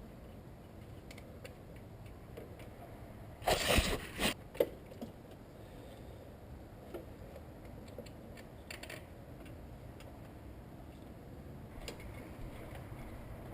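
Hand tools and metal parts clicking and clinking during work on the alternator's cable connections: one short clatter about three and a half seconds in, then scattered small clicks.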